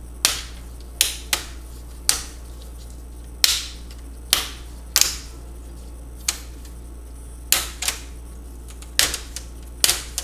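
Plastic laptop screen bezel being pried off by hand, its snap-in clips popping loose one after another as the fingers work around the frame. About a dozen sharp snaps come at irregular intervals.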